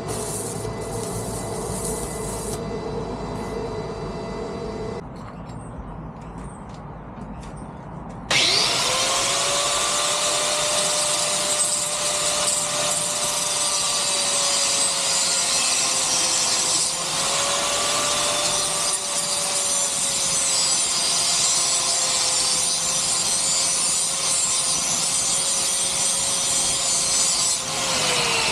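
Arc welder crackling and buzzing for the first few seconds, then, after a short lull, an angle grinder spins up about eight seconds in with a rising whine and grinds steel square tube, its pitch sagging now and then under load.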